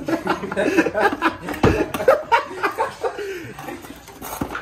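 People laughing and chattering without clear words, with a dull thump about one and a half seconds in.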